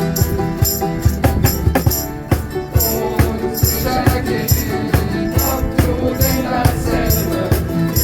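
Several ukuleles strumming chords in a steady rhythm, with a shaker keeping time and voices singing along.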